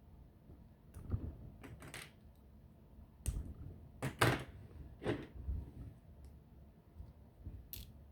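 Plastic Bionicle pieces clicking and clattering as the model is pulled apart and parts are handled, an uneven series of short clicks and knocks, the loudest a little past the middle.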